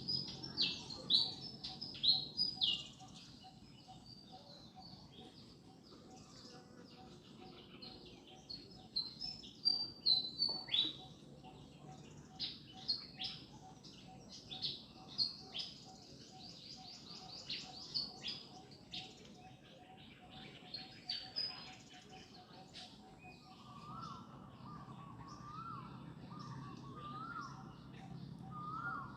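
Birds chirping: bursts of quick, high, downward-sweeping calls. From about 24 s a lower call starts repeating, roughly once a second.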